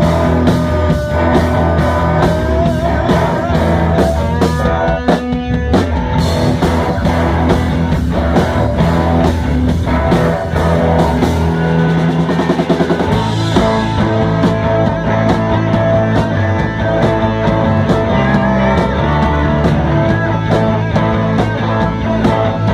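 Rock music with a steady drum beat and guitar; the bass line and arrangement change about 13 seconds in.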